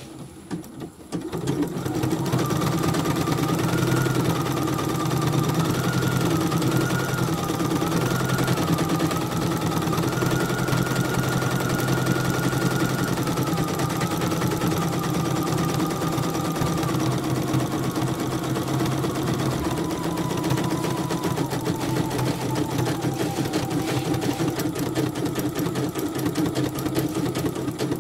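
CNY portable computerized embroidery machine stitching: a rapid, steady needle clatter with a motor whine that steps up and down in pitch. It starts up about a second in.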